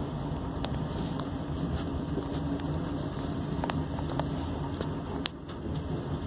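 Heavy diesel engine of a wheel loader running steadily under load as it drives its bucket into a gravel pile, with wind on the microphone and a few light ticks scattered through it.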